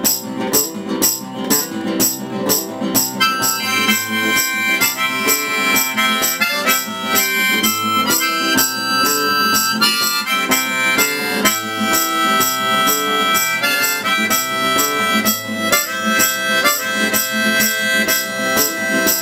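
Strummed acoustic guitar keeping a steady beat, joined about three seconds in by a rack-mounted harmonica playing a solo of held notes.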